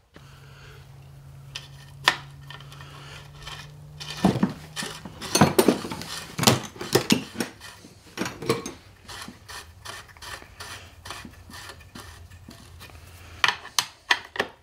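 Hand tools and transfer case parts clinking and clattering on a workbench as they are picked up and handled, with a run of sharp metallic clinks loudest about five to seven seconds in. A low steady hum sits under the first few seconds.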